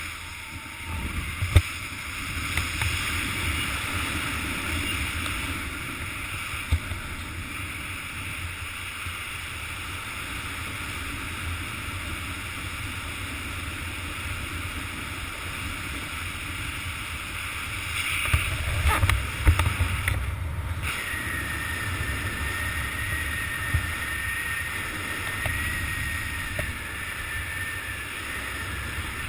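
Wind rushing over a helmet-mounted camera's microphone during a parachute descent, a steady low buffeting with a few short knocks. A thin, steady high whistle comes in about two-thirds of the way through and holds to the end.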